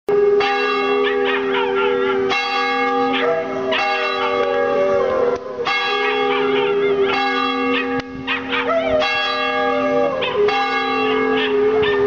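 A church bell tolling for worship, struck about every one and a half to two seconds, each stroke ringing on, while a dog howls along with long wavering howls between the strokes and over them.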